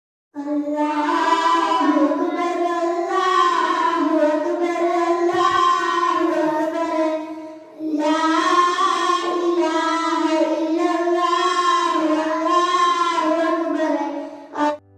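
A child singing a song into a microphone in two long phrases, with a short break for breath a little past halfway.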